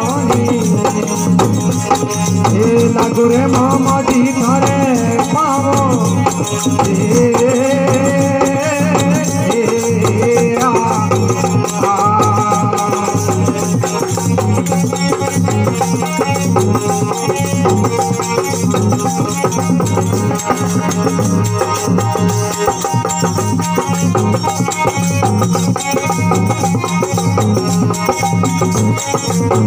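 Live Rajasthani devotional bhajan music: a wavering melody line over a steady drum beat and jingling hand percussion. The melody fades back about halfway through while the rhythm and jingling carry on.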